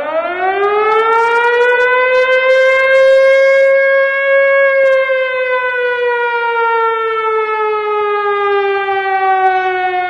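Air-raid siren wailing: it winds up quickly to a steady high wail, then slowly sinks in pitch as it runs down.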